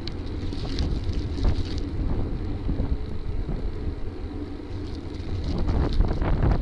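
Wind buffeting the microphone of a bicycle-mounted camera while riding on pavement: a steady low rumble with irregular gusty swells.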